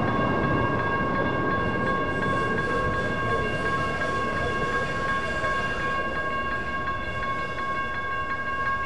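Electronic railroad crossing bell ringing steadily in even repeated strokes, over the rumble of a light rail train passing and fading away.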